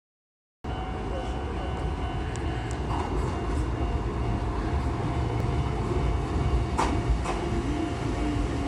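Chichibu Railway 5000 series electric train at a station platform, a steady low rumble with a thin steady tone above it, and two sharp clicks about seven seconds in.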